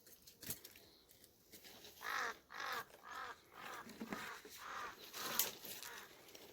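A bird calling repeatedly: about seven short, harsh calls at roughly two a second, starting about two seconds in.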